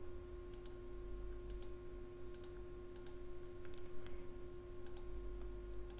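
Faint computer mouse button clicks, about a dozen at irregular intervals, as brush dabs are placed one by one. A steady electrical hum with a constant tone runs underneath.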